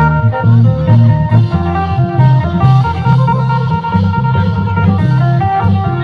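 Phin, the Isan plucked lute, playing a quick run of plucked melody notes over a loud moving bass line and drum accompaniment: Phu Thai style Isan folk music for klong yao dancing.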